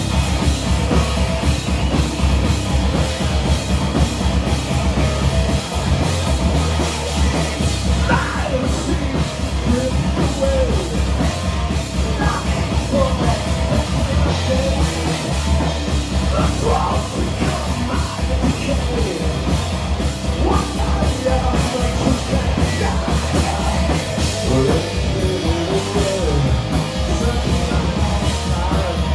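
A live heavy metal band playing full-on, with a drum kit and yelled vocals over the band.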